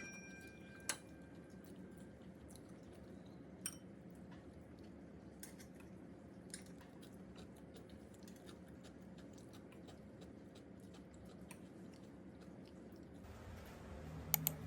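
Quiet room tone with faint, scattered small clicks and taps, a sharper tick about a second in and another near four seconds.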